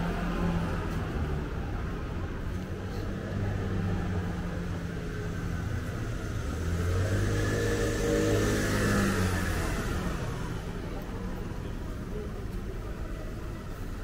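A car engine running close by, with a vehicle passing that grows louder to a peak about eight to nine seconds in and then fades.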